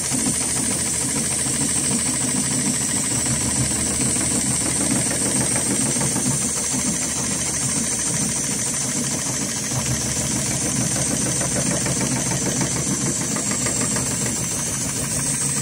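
HighTex 7273CNC-5020 automatic heavy-duty pattern sewing machine stitching a ratchet tie-down strap, its needle running fast and steadily with a rapid, even knocking, under a constant high hiss.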